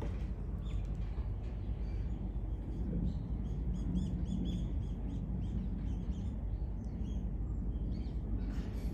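Small birds chirping: a quick run of short, high chirps a few seconds in and a few more near the end, over a steady low rumble of outdoor background noise.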